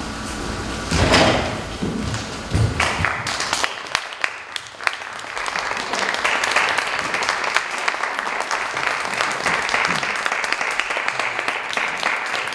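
A couple of low thuds, then audience applause that starts about three seconds in and keeps going as a dense, even clatter of clapping.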